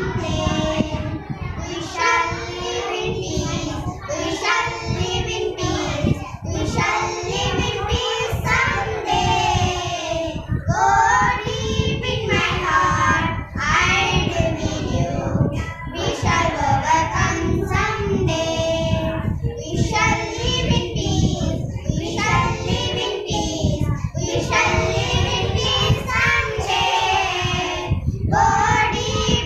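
Three young schoolgirls singing a song together in unison, phrase after phrase with brief breaks for breath.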